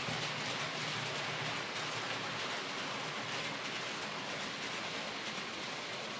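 H0-scale model train running on the layout's track: a steady rolling hiss with a low hum beneath and faint ticks.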